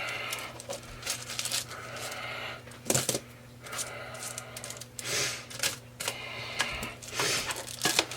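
Spatula scraping and tapping against a baking pan while oven-roasted potato wedges are turned over, in irregular clinks and short scrapes.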